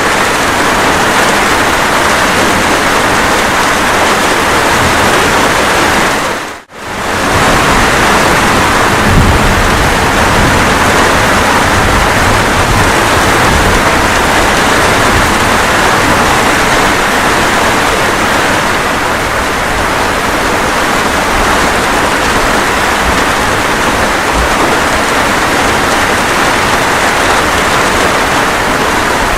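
Steady rain, a continuous even hiss, that drops out briefly about seven seconds in and comes straight back.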